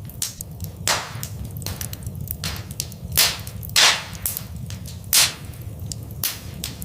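Wood fire crackling in a fireplace: irregular sharp pops and snaps, a few much louder ones near the middle, over a low steady rumble.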